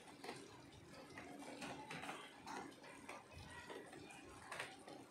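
Faint scraping and light clinks of a steel ladle against a stainless-steel pan while stirring sautéed fenugreek leaves, which have cooked down dry.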